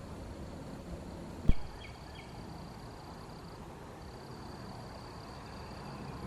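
Outdoor rural ambience with a steady high insect drone, broken by a single sharp thump about a second and a half in, followed right after by three short, quick chirps.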